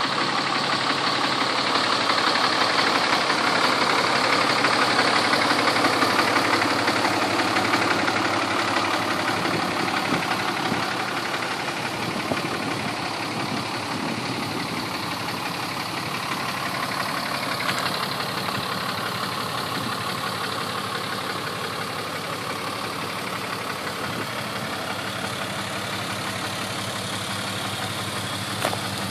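2011 Dodge Ram pickup's engine idling steadily, a little louder for the first several seconds, then even.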